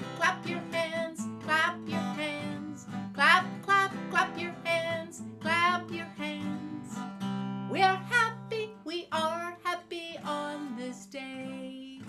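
A woman singing a children's clap-along song, accompanied by a strummed stringed instrument playing steady chords.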